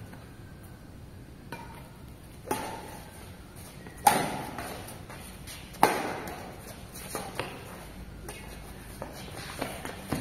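Badminton rackets striking a shuttlecock three times in a rally, about a second and a half apart. Each hit rings out in a large hall, with fainter knocks between and after.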